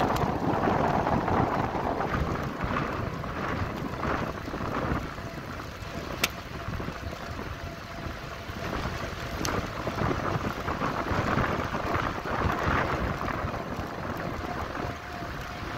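Wind buffeting the microphone of a moving bicycle, a rushing noise that swells and eases, with one sharp click about six seconds in and a fainter one later. A faint steady whine comes up near the end.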